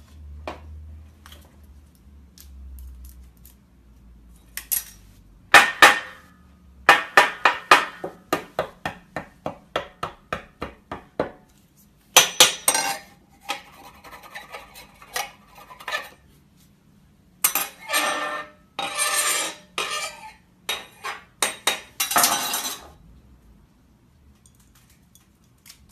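Kitchen knife chopping on a cutting board in a run of quick, even strokes, about three a second, with further bursts of kitchenware clatter and clinks.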